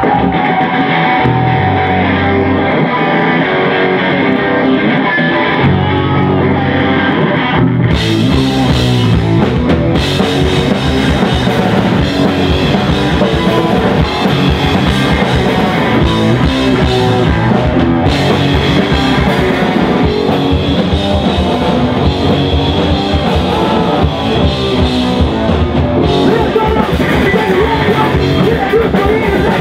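Live punk rock band playing loud, with bass guitar, electric guitar and drum kit; the sound fills out with cymbals about eight seconds in.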